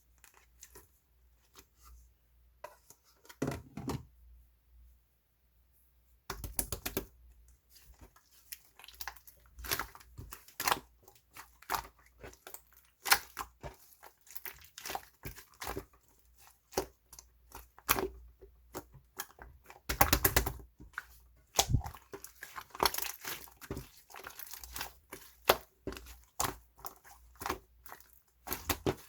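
Fondue slime full of air bubbles being squished and stretched by hand: sticky clicks and crackles. They are sparse for the first six seconds, then come thick and fast.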